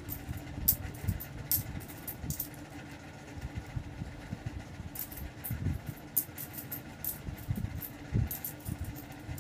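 Philippine peso coins clinking and clicking as they are picked up, sorted and stacked by hand, over a steady low hum.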